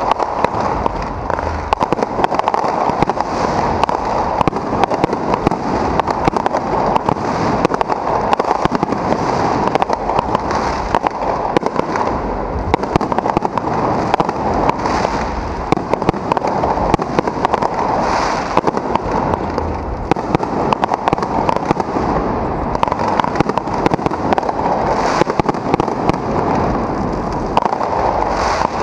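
Aerial firework shells bursting overhead in a dense, unbroken run of pops and crackles, with brighter, louder bursts every couple of seconds.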